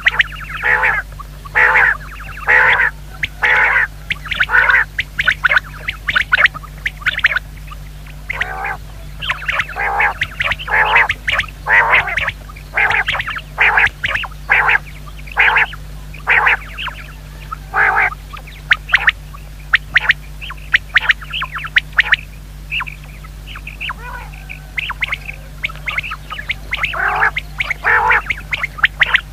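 Common quail calling: a long run of short, harsh calls repeated about one to two a second, with a sparser, fainter stretch a little past the middle.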